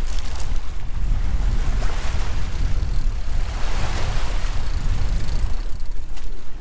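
Sea surf washing against the shore, with heavy wind rumble on the microphone. The wash of water swells louder about halfway through.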